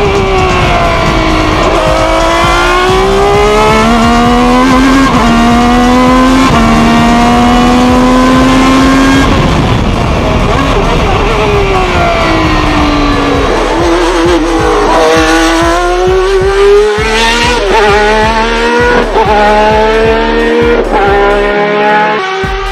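Ferrari 333 SP's V12 engine heard from onboard, revving hard up through the gears with quick upshifts. In the middle it falls in pitch for several seconds as the car slows, then it pulls up through several more upshifts.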